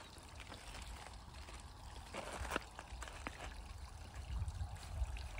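Faint trickling of water, with a few soft clicks about two to three seconds in.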